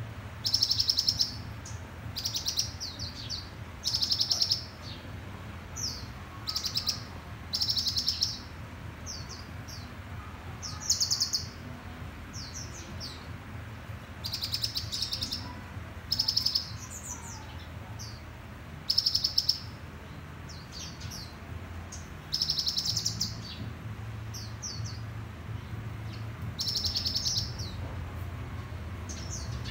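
Caged sunbirds calling: short, high, rapid trilled chirps and quick sweeping notes, one every second or two, from several birds.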